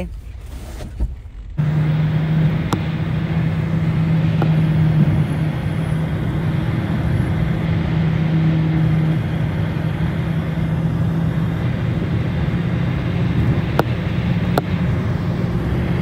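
Car moving at speed, heard from inside: steady road and engine noise with a low droning hum. It starts suddenly about a second and a half in, after a quieter stretch.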